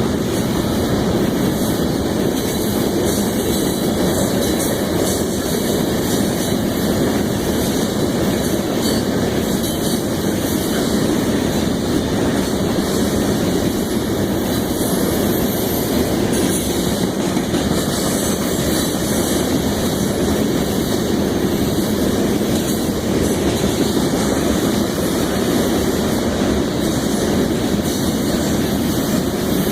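Loaded grain train's covered hopper cars rolling past: a steady rumble of steel wheels on the rails with some clatter.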